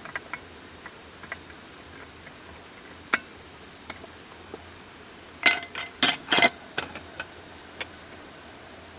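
Cookware and dishes clinking: scattered light taps, then a quick run of louder, ringing clinks a little past the middle.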